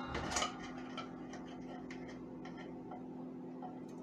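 Rubber spatula scraping thick condensed cream of chicken soup out of a tin can: a few short scrapes and taps, the loudest about half a second in, then faint scattered ticks over a low steady hum.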